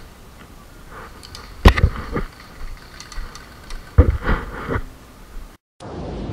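Two clusters of sharp knocks, a few at a time, about one and a half seconds in and about four seconds in; the second cluster is the loudest. After a brief dropout, music starts near the end.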